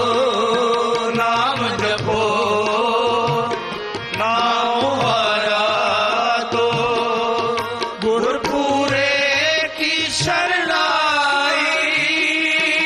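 Sikh kirtan: men singing a devotional hymn to harmonium accompaniment over sustained reedy chords, with tabla keeping a steady beat.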